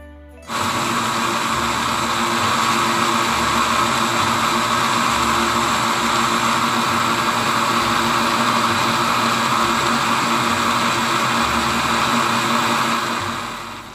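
Countertop blender motor starts about half a second in and runs steadily at high speed, puréeing onion, salted shrimp and plum syrup into a smooth liquid paste. It dies away near the end.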